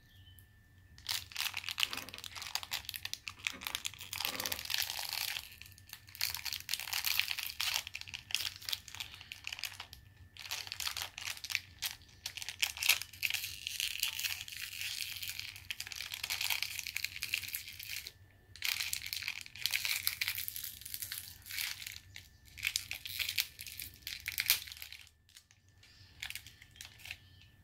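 A small shiny wrapper crinkling and tearing as it is worked open by hand, in runs of rustling with short pauses.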